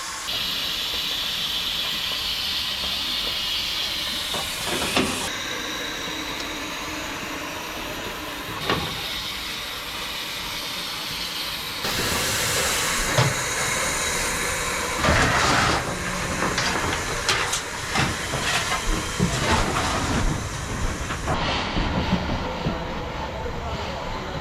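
Steam locomotive hissing steam, then running with a run of irregular clicks and knocks over a steady rumble in the second half.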